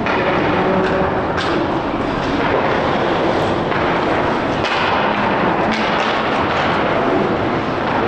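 Ice hockey rink during play: a steady crowd din in the arena, with several sharp knocks from the play on the ice.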